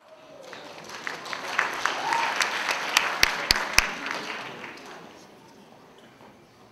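Audience applauding, swelling over the first couple of seconds, with a few loud single claps close by around three to four seconds in, then dying away.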